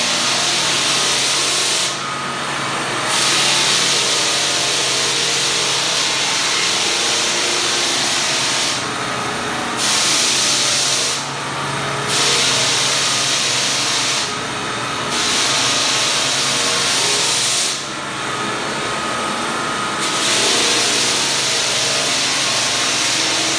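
Walk-behind drum floor sander with dust bag, its motor running steadily while the sanding drum hisses across a hardwood floor being sanded before its finish coat. The hiss drops out for about a second several times, as the drum comes off the wood between passes.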